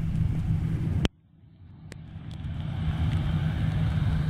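Boeing 737-800's CFM56 jet engines rumbling as the airliner rolls out along the runway, with a steady low hum under the noise. About a second in, the sound cuts out abruptly after a click, then fades back up over the next two seconds with a brighter hiss.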